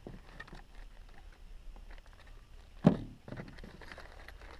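Plastic packaging bags rustling and crinkling as parts are handled in a cardboard box, with one sharp knock about three seconds in.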